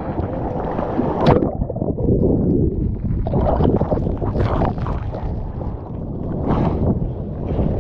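Ocean water rushing and splashing close against a mouth-mounted GoPro in the surf: a continuous churning noise broken by several sharper splashes.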